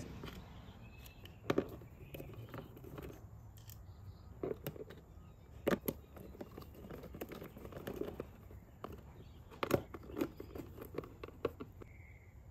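Faint, scattered clicks and taps of a hand screwdriver, screws and plastic parts as a replacement ignition module is screwed back into its mount inside a portable generator's open front panel.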